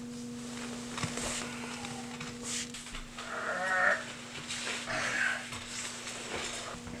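A man's strained cries with a wavering pitch, two short ones starting about three seconds in, over a steady low hum.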